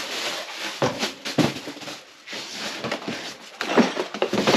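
Irregular rustling, scraping and knocks as exhaust parts and their packaging are handled and unpacked.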